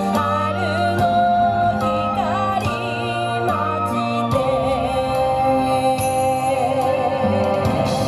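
Yosakoi dance song played back over loudspeakers: a sung melody with wavering, ornamented pitch over sustained accompaniment and a low bass line. The accompaniment changes about halfway through.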